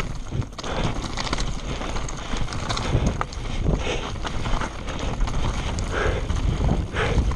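120 mm Scott Spark full-suspension mountain bike descending a rocky trail at speed: irregular knocks and clatter as the tyres hit stones and the chain and frame rattle, over a steady low rumble.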